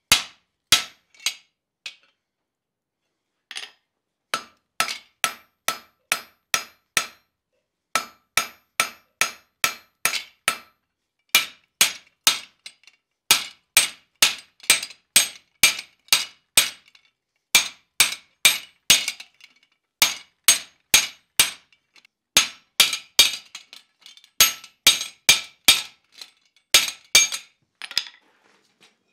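Hand hammer striking the top die of a blacksmith's guillotine tool to shoulder a square tenon in hot square steel bar. The blows are sharp and regular, about two a second, each with a bright metallic ring, and they come in runs with short pauses, the first pause about two seconds in.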